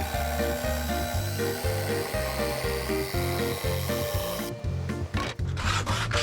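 Cordless power tool running steadily as it cuts into wood, stopping about four and a half seconds in; then rasping rubbing strokes on wood, about three or four a second, with background music throughout.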